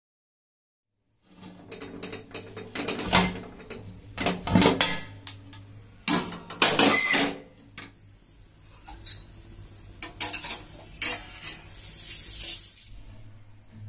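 Metal clanking and clattering of an aluminium pressure cooker lid being twisted open and handled, a string of sharp knocks and scrapes, with a high hiss near the end.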